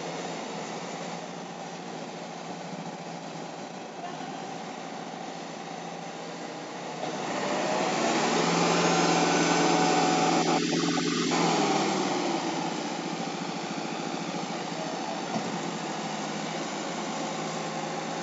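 Tractor engine running steadily, growing louder about seven seconds in and easing back after about five seconds.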